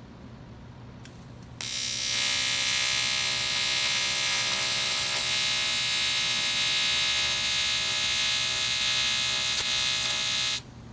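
AC TIG welding arc on a cast aluminum intake manifold giving a steady buzz. It strikes about a second and a half in and cuts off just before the end.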